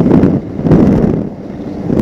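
Wind buffeting the microphone on board a Formula One racing powerboat at speed, mixed with water spray and the outboard engine. The noise surges and eases, dipping a little over a second in.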